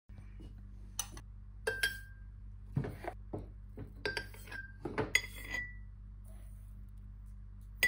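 A metal spoon clinking against glass jars as chia seeds are spooned in: about eight sharp clinks in the first five and a half seconds, some ringing briefly, over a steady low hum.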